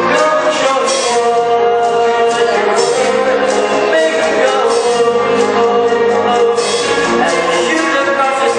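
A vocal group singing a pop song live, with held, wavering notes over instrumental accompaniment.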